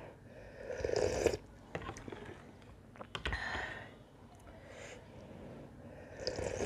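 Slurping sips of thin buckwheat-flour soup from a spoon, three short noisy sips: about a second in, halfway through, and near the end, with a few small clicks between them.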